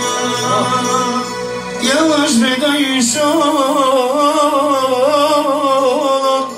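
Male voice singing a wavering, heavily ornamented tallava melody into a microphone, entering about two seconds in, over electronic keyboard accompaniment with steady held notes.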